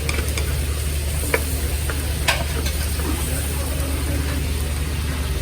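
Garlic sizzling in hot cooking oil in a pan, stirred with a utensil that clicks sharply against the pan a few times. A steady low hum runs underneath.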